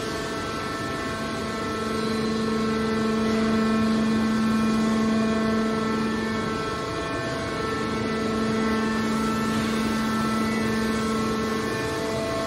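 Hydraulic scrap metal baler's power pack running: the electric motor and hydraulic pump hum steadily at one fixed pitch, dipping briefly a couple of times.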